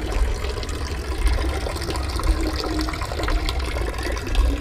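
A stream of water pouring steadily from a tiled wall fountain's spout and splashing into the stone basin below.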